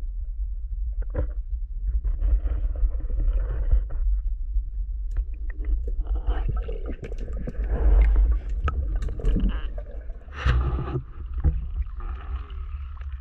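Muffled water noise picked up by an action camera worn underwater: a constant low rumble with swishing water movement and scattered small clicks and knocks. About ten and a half seconds in there is a brief louder rush of water as the diver surfaces.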